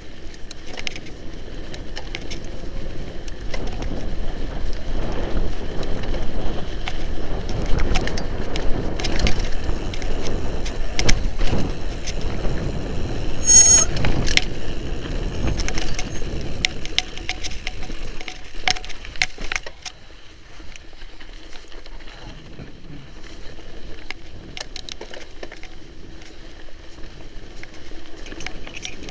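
Mountain bike ridden over a rough sandy dirt trail: a continuous rumble of the tyres on sand and dirt with many sharp rattles and clicks from the bike over bumps. It is loudest and roughest through the middle, with a brief high-pitched squeal about halfway, and quieter after about twenty seconds.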